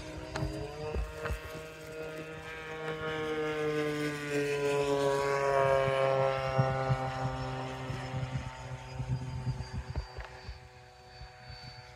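Fan whine of a Freewing F-18 radio-control electric ducted-fan jet flying past. A high whine climbs in pitch, is loudest about six seconds in, then drops in pitch and fades as the jet passes.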